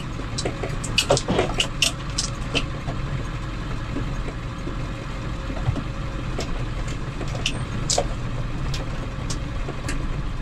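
Short school bus driving on a dirt road, heard from inside the cab: a steady engine and road rumble with frequent sharp rattles and clicks throughout.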